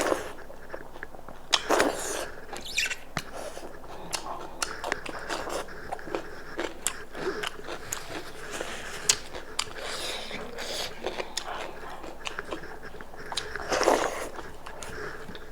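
Close-miked chewing of a goat-meat soup meal, with irregular wet mouth clicks and smacks and two louder bites, one about two seconds in and one near the end.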